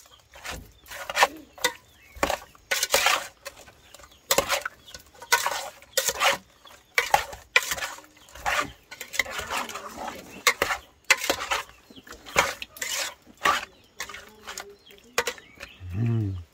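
Metal spoon stirring wet, spiced raw fish pieces in a stainless steel bowl: irregular clinks and scrapes of the spoon against the bowl, one or two a second.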